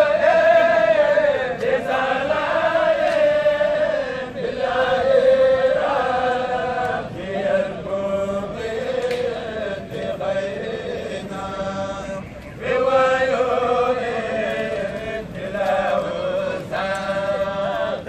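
A group of men chanting devotional verses together in a slow, melodic chant with long held notes, phrase after phrase with brief pauses for breath.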